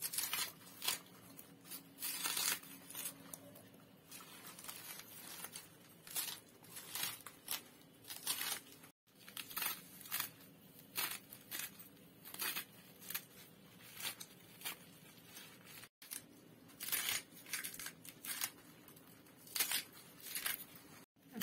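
Leafy greens being cut finely by hand, held over a steel wok: an irregular run of crisp snips and tearing sounds from the leaves and stalks, a few a second, with pieces dropping into the pan.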